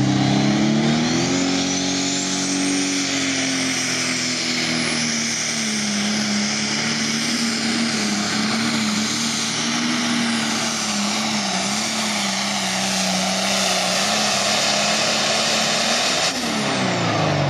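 Pro stock pulling tractor's turbocharged diesel engine running flat out as it pulls the sled down the track. Its pitch climbs in the first two seconds, together with a high whine, and then holds near steady. Near the end the engine's pitch falls as it winds down.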